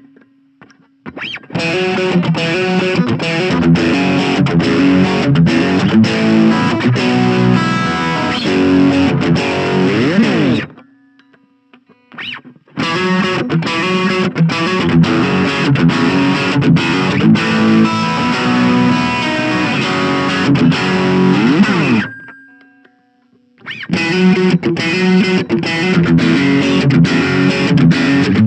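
Electric guitar played through a Blackstar Fly 3 mini amp's overdrive channel, giving a distorted tone. It plays three phrases of distorted riffing, each broken off by a short pause.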